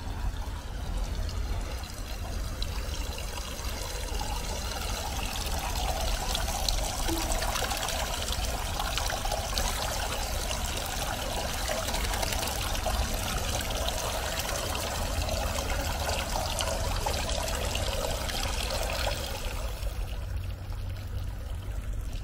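Steady trickling and splashing of running water, growing fuller after a few seconds and easing off near the end.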